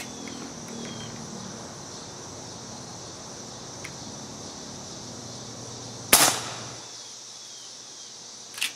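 FX Streamline .22 PCP air rifle with its factory shrouded barrel fired once at full power: a single sharp crack about six seconds in with a short ringing tail, reading about 70 decibels. A steady high insect buzz runs underneath, and a fainter click comes near the end.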